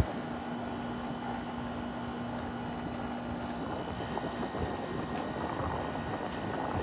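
Haier 5,200 BTU window air conditioner running with its fan on low: a steady whir of air with a low hum that fades about halfway through.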